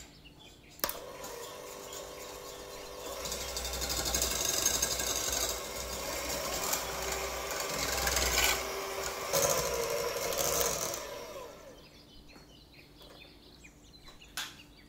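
Electric mixer whipping liquid cream into chantilly: the motor switches on with a click about a second in, runs steadily and grows louder after a few seconds, then stops about eleven seconds in.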